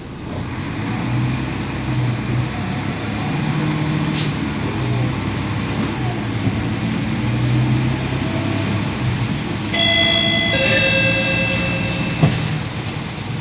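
Inside a Mercedes-Benz OC500LE city bus under way: the engine runs with its pitch rising and falling as the bus drives, over road rumble. About ten seconds in, a two-note falling chime sounds, and a sharp knock follows shortly after.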